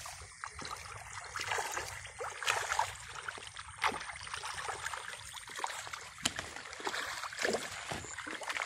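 Small, irregular splashes and plops at a pond surface as murrel (snakehead) fish break the water.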